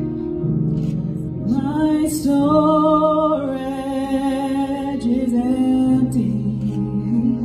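Worship music: a woman sings long, sliding held notes over soft, sustained chords. The voice comes in about a second and a half in.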